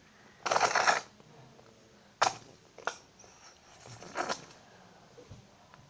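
Handling noises from squeezing a plastic bottle of clear glue: a short rasping burst of sputtering followed by a sharp click and a few fainter knocks.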